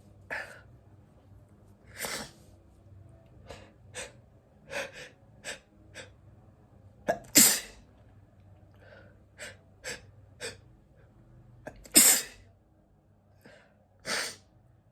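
A person sneezing over and over, in a long fit of short sneezes, some small and some full. The loudest come about halfway through and again near the end.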